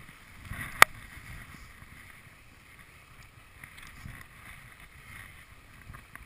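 Skis sliding and scraping over packed snow, a steady swishing noise, with a single sharp click about a second in.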